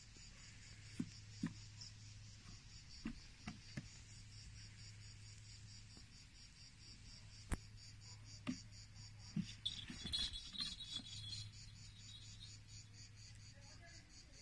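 Steady, rapid insect chirping over a low steady hum, with scattered soft knocks and taps; the sharpest knock is about halfway through, and a small flurry of them comes a few seconds later.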